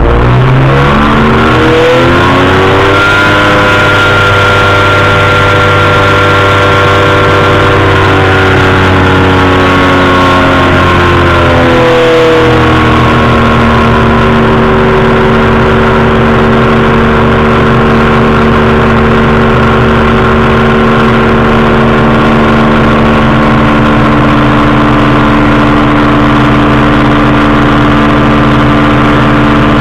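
Powered parachute's engine and propeller running in flight, loud and steady. The revs climb in the first few seconds, then ease back to a lower steady pitch about twelve seconds in.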